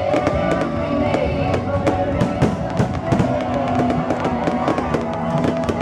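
Fireworks crackling and popping in rapid, dense succession, with music playing underneath.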